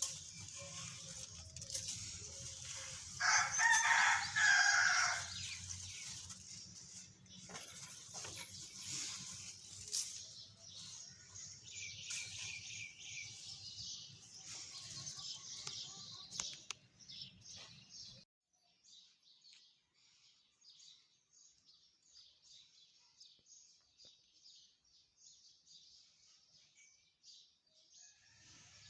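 Pigeons' wings flapping as they are let out, with a rooster crowing loudly once about three seconds in. Small birds chirp throughout, and a low background hum cuts off suddenly a little past halfway.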